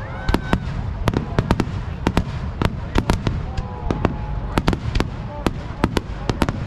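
Aerial firework shells bursting in quick succession, about three or four sharp bangs a second over a continuous low rumble of further explosions.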